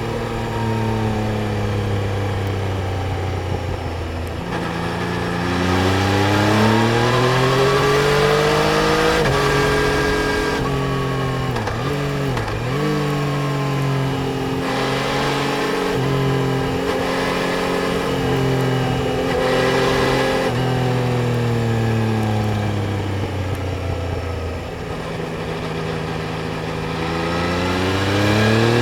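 Yamaha Tracer 900 GT's three-cylinder engine, heard from the moving bike, rising and falling in pitch as it accelerates, changes gear and eases off the throttle. Its pitch climbs steadily, drops back sharply several times, dips quickly twice near the middle, and climbs again near the end.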